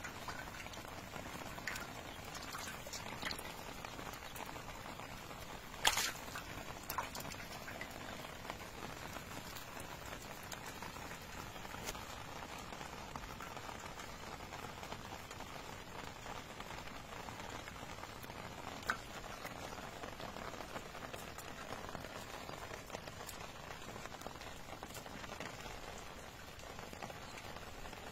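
Steady hiss like light rain, with a few sharp taps and clicks from hands working fish out of a nylon cast net; the loudest tap comes about six seconds in.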